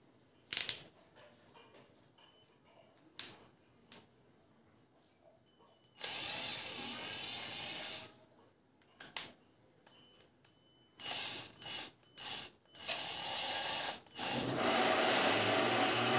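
12-volt cordless drill/driver running free with a Phillips bit in the chuck, its motor and gearbox whirring in bursts: a run of about two seconds some six seconds in, several short trigger pulls, then longer and louder runs near the end. A few sharp clicks come in the first few seconds.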